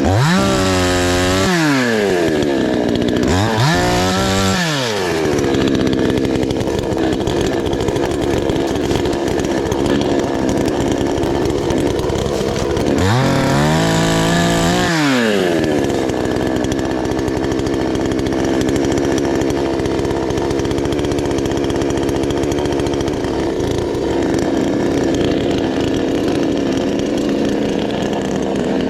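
Chainsaw engine idling steadily, revved up and let fall back three times: twice in the first five seconds and once about halfway through.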